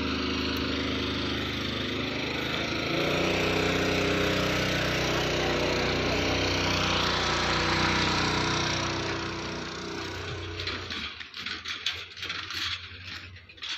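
An engine running steadily, a little louder from about three seconds in, then fading out about eleven seconds in, leaving scattered light clicks and rustles.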